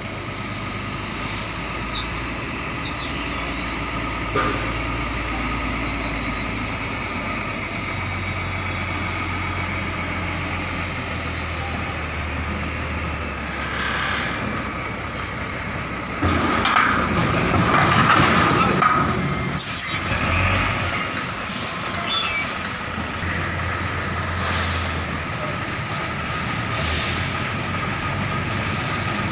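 Diesel engine of a container tractor unit running steadily while it manoeuvres and couples to a semi-trailer, its low hum shifting several times as the load changes. About 16 seconds in comes a loud hiss of air lasting about three seconds.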